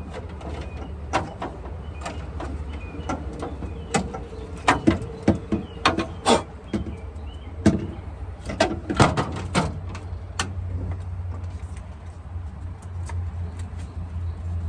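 Irregular clicks and knocks of parts being handled while the refrigerator's control board is worked on, busiest in the middle, over a steady low hum.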